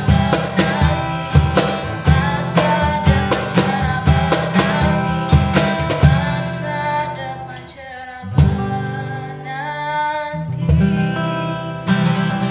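Small acoustic band: a woman singing a melody over strummed acoustic guitar and cajon beats. The beat thins out and the music drops back a little past the middle, then comes back in with a sharp hit.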